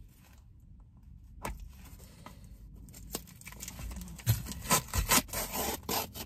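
Cardboard parcel box being torn open by hand: a few scattered rustles and clicks, then from about four seconds in a run of loud ripping and scraping as the taped cardboard flaps are pulled apart.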